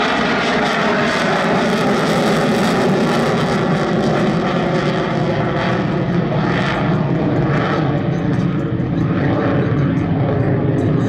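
F-16 Fighting Falcon jet engine, a loud, steady roar of jet noise as the fighter flies its display, with the highest hiss thinning out over the second half.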